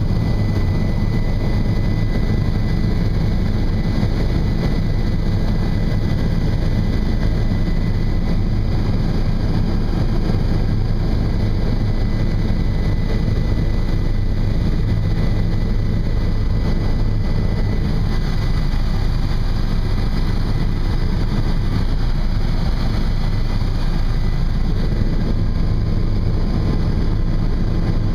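Helicopter engine and rotor heard from inside the cabin in flight: a steady, loud, low drone, with a faint thin high whine over it.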